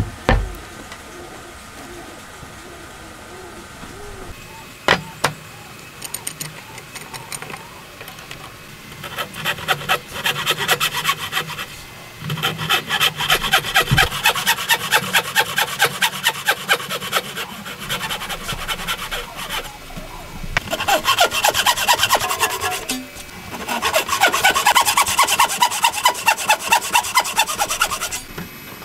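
Hand saw cutting across a square wooden post along a marked line for a joint, in fast rhythmic strokes in several runs with short pauses. A sharp knock at the start and another a few seconds later come before the sawing begins.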